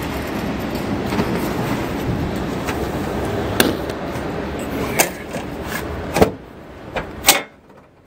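Rustling handling noise as a hand-held camera is lowered to a concrete floor, then five sharp clicks and knocks in the second half, the loudest about six and seven seconds in. No engine is running.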